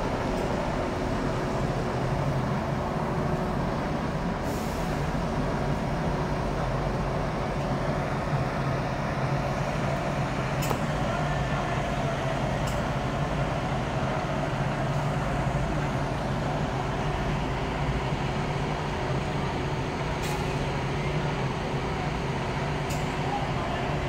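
Double-decker coach idling at a bus bay: a steady engine drone with a constant hum, and a few brief sharp high sounds along the way.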